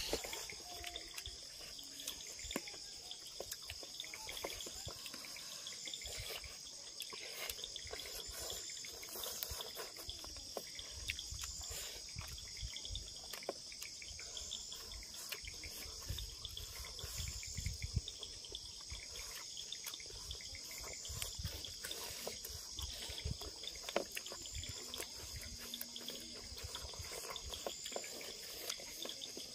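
Steady high-pitched chorus of night insects, with soft smacks and clicks of eating by hand close to the microphone.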